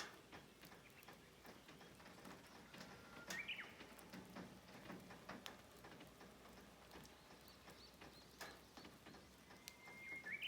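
Japanese bush warbler (uguisu, the 'Japanese nightingale') singing twice, about three seconds in and again near the end: each song a long held whistle that breaks into a quick rising flourish, the 'ho-hokekyo' song.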